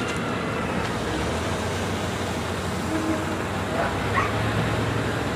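Steady outdoor background noise with a low engine hum coming in about a second and a half in, and two short faint calls about four seconds in.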